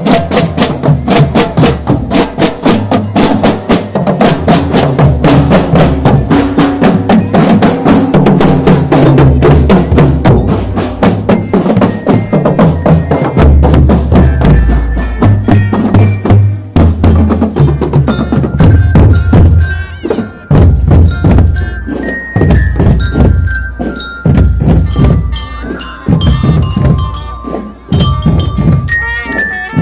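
School marching drum band playing a fast snare and bass drum rhythm. About halfway through, a bell-lyra (marching glockenspiel) melody rings out over the drums.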